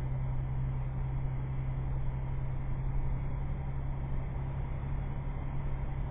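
Toyota FJ Cruiser's 4.0-litre V6 running at a steady low drone while driving, with a constant hiss of road or water noise underneath.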